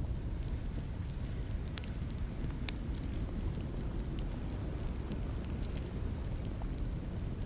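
Wood fire crackling in a fireplace: a steady low rumble of burning with scattered sharp pops and snaps.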